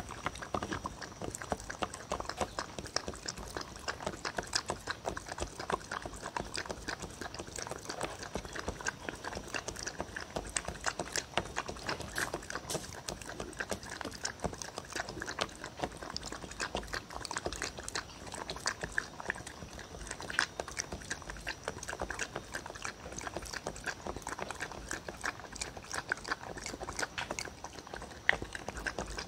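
A dog lapping pet milk and cereal rings from a wooden bowl: a steady run of quick, wet tongue clicks and slurps.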